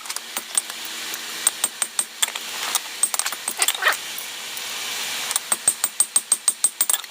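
Hand hammer striking hot railroad-spike steel on an anvil while drawing out the knife blade, over a steady hiss. The blows are scattered at first, then become a fast, even run from about five seconds in.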